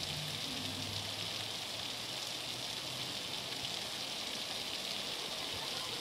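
Heavy rain pouring down while muddy floodwater rushes along a street, a steady hiss. A faint low hum sits under it for the first couple of seconds.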